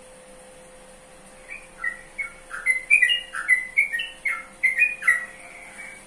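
Yellow-vented bulbul (trucukan) singing a quick phrase of short chirping notes, starting about a second and a half in and running for about four seconds.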